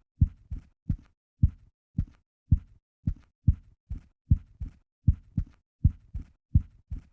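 Typewriter keys being struck one after another: about two deep thuds a second at an uneven pace, each with a faint click on top.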